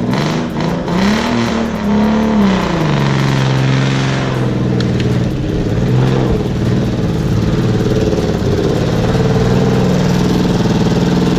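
An off-road vehicle's engine revving hard under load: the pitch climbs about a second in, drops back at about two and a half seconds, then holds high and steady.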